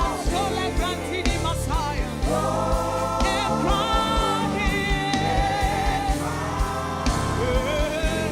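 Gospel worship music: singing with vibrato over sustained band chords and a steady low drum beat.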